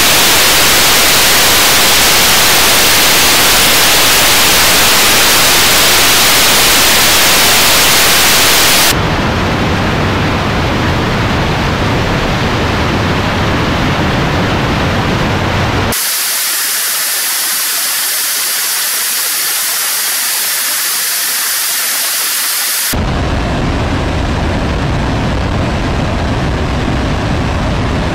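A 75-tonne-class kerosene–liquid-oxygen rocket engine for the Nuri launcher firing on a test stand in an acceptance hot-fire test: a loud, steady rush of noise. The tone shifts abruptly three times, hissier and thinner at some points and deeper at others.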